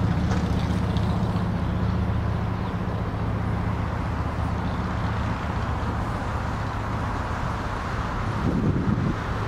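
Low vehicle engine hum, steady at first and fading away after about four seconds, over a steady rumble. Wind buffets the microphone near the end.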